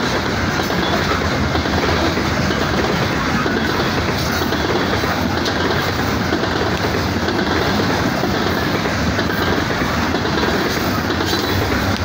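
Coal train hopper cars rolling past close by: a steady, loud rumble of steel wheels on rail, with a few sharp clacks of wheels over rail joints.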